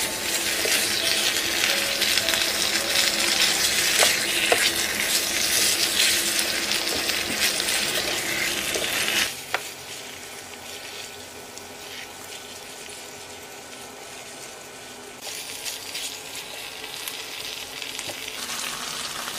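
Pork belly and webfoot octopus in gochujang seasoning sizzling on an electric griddle pan while a spatula stirs them. The loud sizzle drops suddenly to a quieter frying hiss about nine seconds in.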